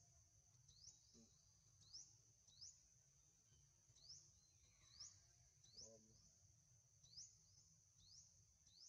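Faint outdoor forest ambience: a steady high-pitched drone with short rising chirps repeating roughly once a second, under a low hum. A brief faint low sound comes about six seconds in.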